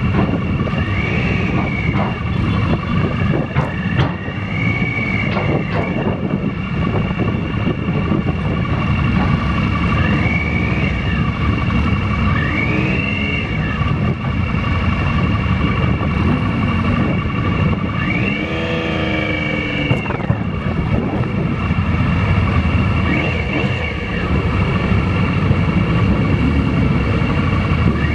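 Triumph motorcycle engine running as the bike rolls slowly, with heavy wind rumble on the microphone. A few short rising-and-falling calls sound over it, the longest about two-thirds of the way through.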